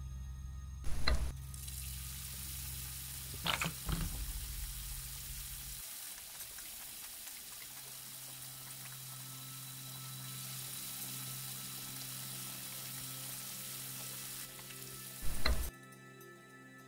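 Tap water running into a stainless steel sink and splashing over hands being washed, a steady hiss that starts about a second in and stops shortly before the end. A few loud knocks, as the faucet is turned on and near the end, and a low steady hum underneath.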